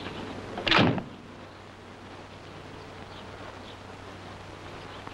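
A car door slams shut once, about a second in, over the steady hiss and hum of an old film soundtrack.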